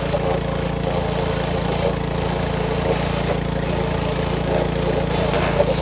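Gas-engine pressure washer running steadily, its small engine's fast, even firing pulse underneath.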